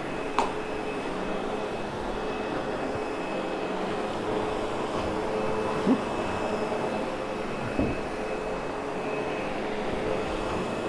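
Sebo X8 upright vacuum cleaner running steadily with a whine as it grooms a damp wool rug after cleaning, with three brief knocks.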